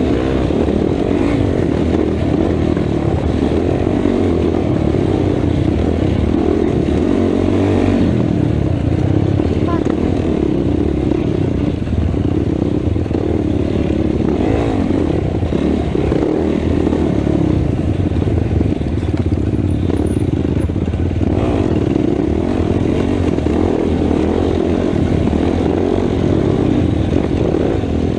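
Race ATV engine running hard on a wooded trail, its pitch rising and falling continuously with the throttle.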